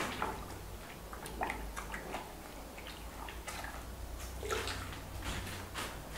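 A hand sloshing and stirring liquid in a plastic bucket, with irregular small splashes and clicks.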